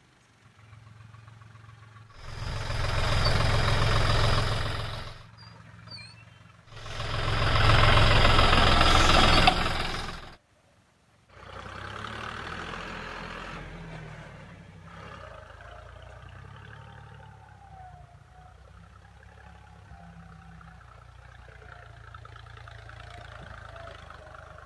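Deutz-Fahr Agromaxx 4050E tractor's three-cylinder diesel engine revved hard in two loud bursts of a few seconds each. After a short break it runs steadily and more quietly under load while working the field.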